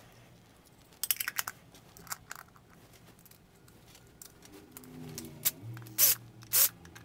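Metal back plate set down onto an aluminium pedal enclosure with a few light clicks and scrapes, then a cordless drill/driver running a screw into the plate, its motor a low hum with two sharp clicks near the end.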